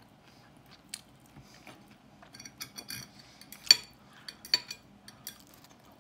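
Knife and fork clicking and scraping against a ceramic plate while cutting a potato, with scattered light clicks and two sharper clinks a little past halfway.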